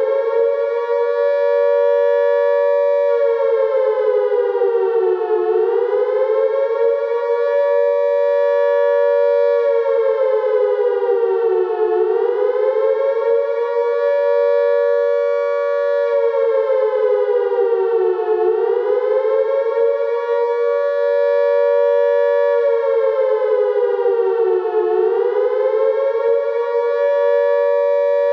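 Air-raid (civil defence) siren wailing with two close pitches sounding together. It finishes winding up to full pitch at the start, then holds a steady note that dips and climbs back about every six and a half seconds.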